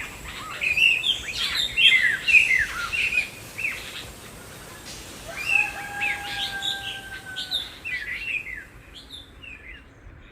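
Small songbirds chirping and twittering in quick, sweeping high notes. About halfway through, a steady two-pitch tone is held for about two seconds, and the birdsong fades out toward the end.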